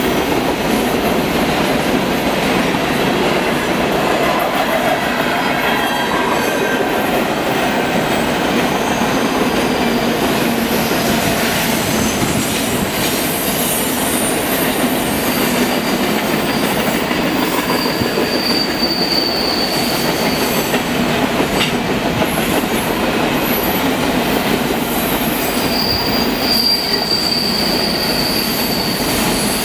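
CP Rail grain train's covered hopper cars rolling through a curve, a steady rumble of wheels on rail. High-pitched wheel squeal from the curve rises out of it twice, about two-thirds of the way through and again near the end.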